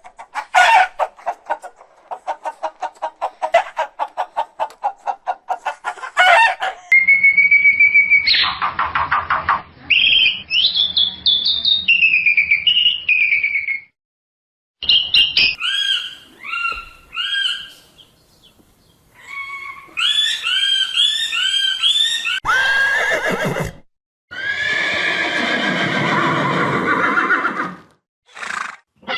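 A string of separate farm animal calls, one clip after another with short silent gaps between them: a fast pulsed call at first, then falling, wavering cries and short repeated calls.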